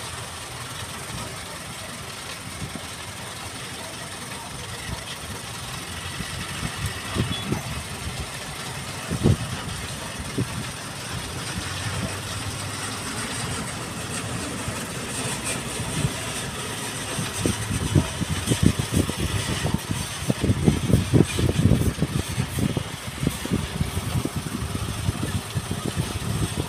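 Diesel engines of heavy trucks running steadily, a transit mixer truck among them, with irregular low thuds that grow more frequent and louder in the second half.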